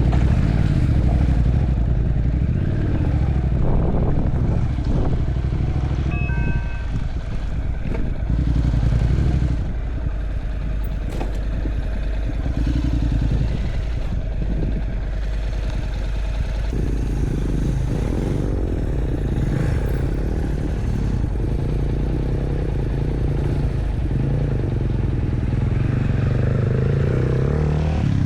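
Motorbike engine running steadily while riding.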